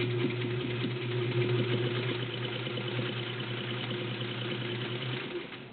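Morse 99K-clone straight-stitch sewing machine running steadily on its 1.2-amp motor, a smooth hum with fast needle ticking, stopping about five seconds in.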